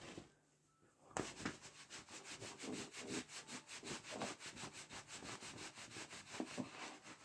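A towel rubbed briskly over hair, a rapid scrubbing of several strokes a second that starts about a second in.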